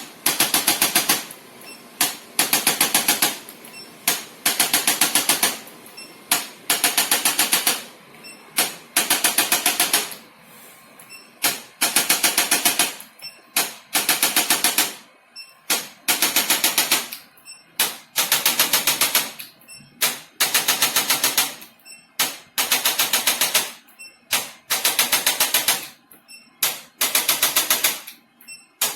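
Handheld percussion adjusting instrument firing rapid mechanical clicks in bursts of about a second, roughly ten clicks a second, repeated every couple of seconds.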